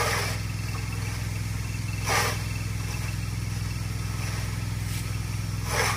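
High-flow pressure washer engine running steadily, a low drone under the faint hiss of the water stream. Two brief whooshes stand out, about two seconds in and near the end.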